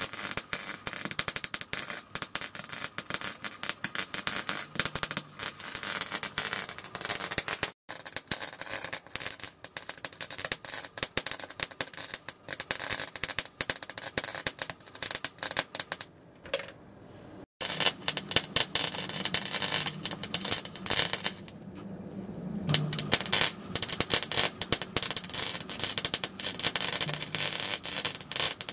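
Wire-feed (MIG) welding arc crackling and sizzling as a steady rapid crackle, with a few short breaks where the arc stops.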